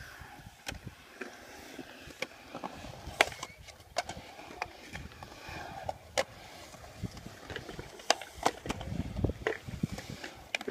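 Skateboard's wheels rolling on smooth concrete through a skatepark bowl: a low rumble that swells and fades as the board carves over the humps, with sharp clacks every second or so.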